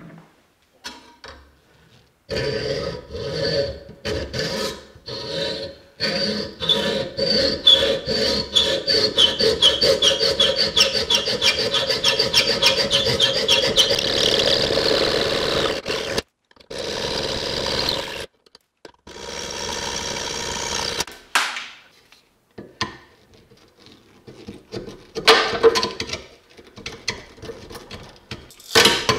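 A hand tool rasping back and forth in quick, repeated strokes against the rusty cleaver's riveted wooden handle, with a slight ringing squeal, for most of the first half. Later come shorter scrapes and sharp cracks as the old wooden handle scale is pried off the metal tang.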